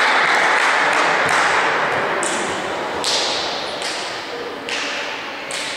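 Applause dying away in a large sports hall, then about five sharp knocks of a volleyball on the hard court, roughly a second apart, each echoing in the hall.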